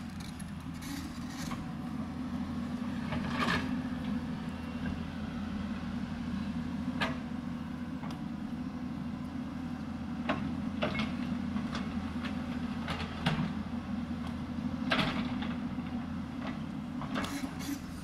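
Hyundai 220 crawler excavator's diesel engine running steadily as it digs, with scattered short clanks and scrapes from the bucket working the soil.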